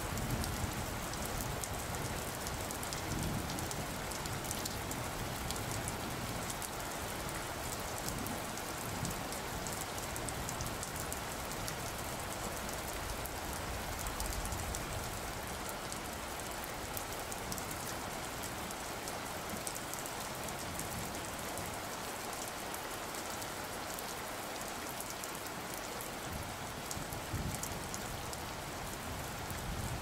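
Steady rain, an even hiss with fine patter of drops, with low rumbles near the start and near the end.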